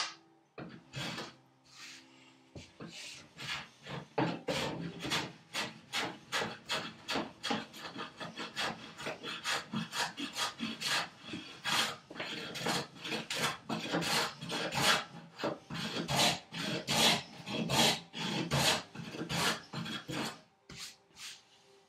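Small hand plane taking quick, short strokes across the hardwood of a wooden vise chop, about three a second, each stroke a brief shaving rasp as the corner is rounded over. A sharp knock comes at the very start.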